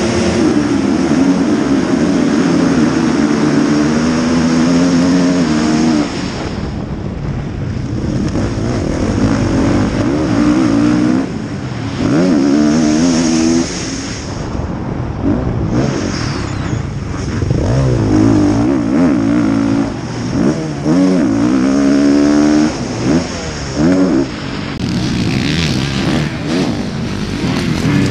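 Motocross bike engines held at high revs at the start gate, then an onboard run: one bike's engine accelerating hard, its pitch climbing and dropping as the throttle is opened and shut and it shifts gears, with several brief breaks in power. Near the end, bikes pass and accelerate out of a corner.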